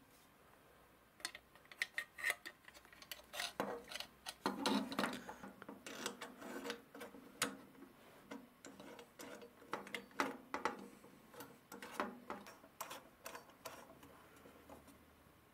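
Brass stove fittings and a painted metal pot-support frame being handled and fitted together by hand: irregular small clicks, taps and clinks of metal on metal.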